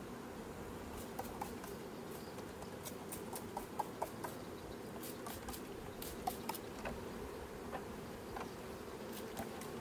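Bees at a hive buzzing in a steady hum, with scattered sharp clicks and ticks over it.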